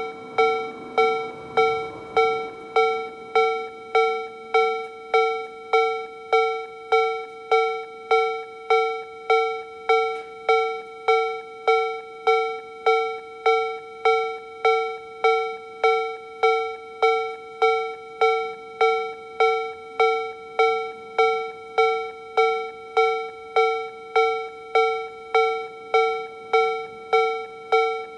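Japanese railway level-crossing alarm: a Toho Denki TA3-VR electronic sound generator playing the Tobu-style B/C tone at its slow tempo. It gives an even, bell-like ding about three times every two seconds, each ding fading away before the next.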